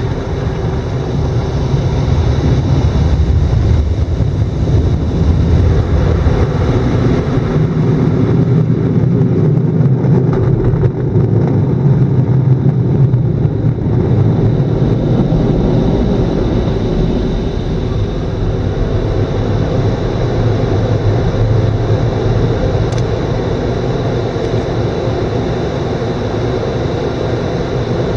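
Automatic tunnel car wash equipment running, heard from inside the car: a steady, loud rush and rumble of water spray and machinery.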